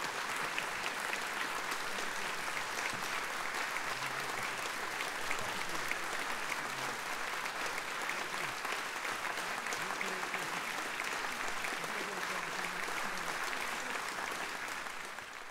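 Audience applauding steadily, a dense patter of many hands clapping, fading out at the very end.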